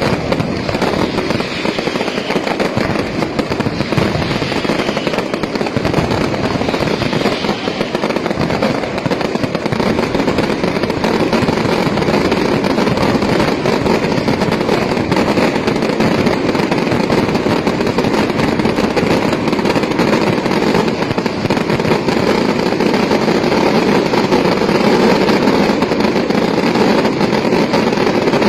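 Fireworks display: a dense, unbroken barrage of firecracker and firework detonations merging into a continuous rapid crackle, building a little in loudness over the first dozen seconds and then holding.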